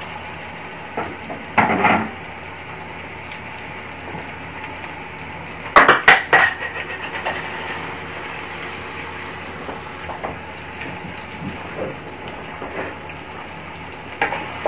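Metal cookware clattering as sliced onions are tipped from a steel bowl into hot ghee in an aluminium pot: a short knock about two seconds in and a louder cluster of metal clatters about six seconds in, over a faint steady sizzle of the onions frying.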